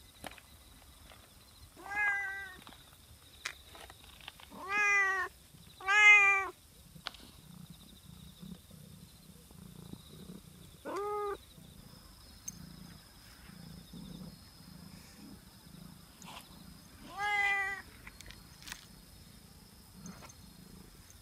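A black-and-white domestic cat meowing five times, each call about half a second long, the third the loudest. Between the later meows it purrs, a faint low rumble.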